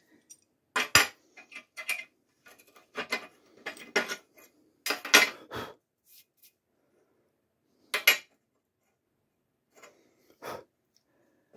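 Sharp metal clinks and clanks, a dozen or so spread irregularly, loudest about five and eight seconds in. They come from a blue steel G-clamp and a small steel drilling template being undone and lifted off a steel plate and handled.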